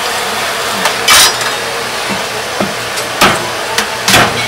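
Sharp knocks of a cleaver chopping fish on a wooden cutting board: a few strikes, the loudest about a second in and two more near the end.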